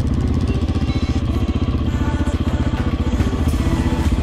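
Honda single-cylinder four-stroke dual-sport motorcycle engine running steadily under way, heard from the bike carrying the camera, with an even, rapid firing beat.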